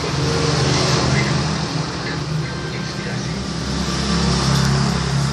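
Electric hair clipper running steadily close to the microphone, a low buzzing hum with a hiss over it as it cuts hair.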